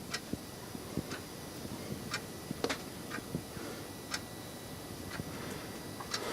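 Regular ticking, about one sharp tick a second, with a few soft low knocks in between and a faint steady high tone underneath.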